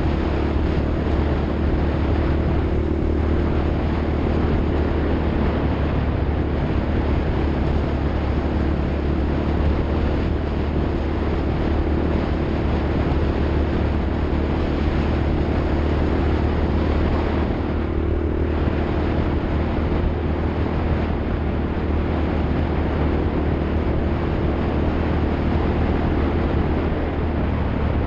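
Off-road vehicle engine running steadily under way, its low hum holding an even pitch under a constant rushing noise.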